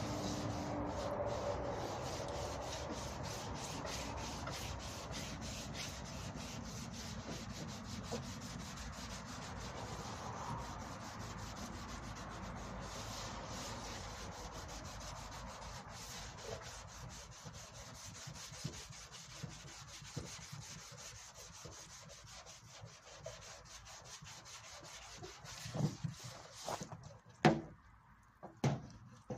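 Hand sanding of primer-filler on a Peugeot 203's front wing: fast back-and-forth rubbing strokes of abrasive paper on the panel, growing fainter. A few sharp knocks near the end.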